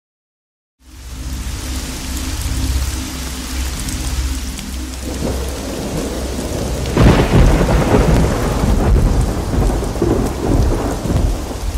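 A thunderstorm: after a second of silence, steady heavy rain sets in with low rumbling thunder, and a louder roll of thunder breaks about seven seconds in.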